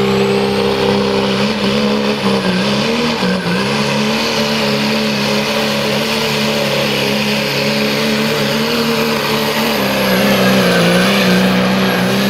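Pro stock diesel Dodge Ram pickup at full throttle pulling a weight-transfer sled, its engine held at steady high revs under heavy load with a high turbocharger whistle above it. The revs sag briefly twice, early on and again near the end.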